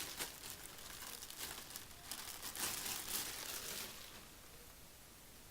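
Packaging crinkling and rustling as a cordless router is unwrapped, stopping about four seconds in.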